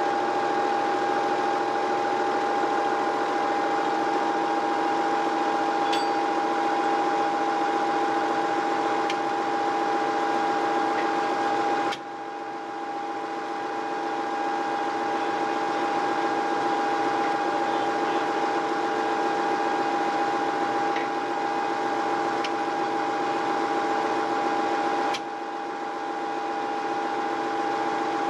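Tractor's diesel engine idling steadily, with a constant whine over the engine note. The sound drops abruptly for a moment twice, about twelve seconds in and near the end.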